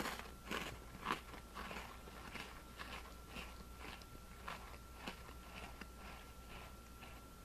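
Close-up chewing of a crunchy Oreo sandwich cookie: a rapid series of crisp crunches, about two a second, loudest in the first second and growing softer as the cookie is chewed down.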